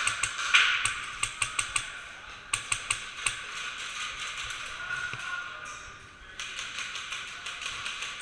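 Airsoft guns firing, heard as runs of sharp snapping clicks, several shots in quick succession, a pause of a few seconds, then more shots near the end.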